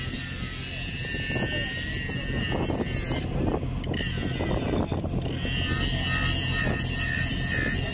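A steady engine drone from site machinery, with a high whine over it and scattered knocks in the first half.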